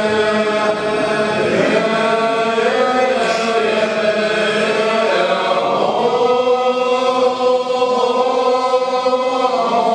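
Orthodox liturgical chant sung by a group of male voices together, in long held notes, moving to a new phrase about halfway through.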